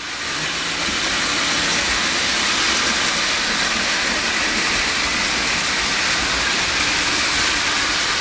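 Märklin HO model trains running on the track: a steady, even whirring hiss of wheels and motors that keeps going without a break.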